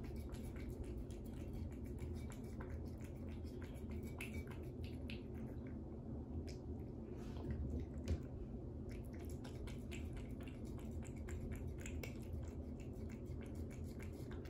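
A cat chewing raw duck feet: wet, squishy bites and small sharp clicks of teeth on the foot, coming in quick irregular runs, with one louder click a little past halfway.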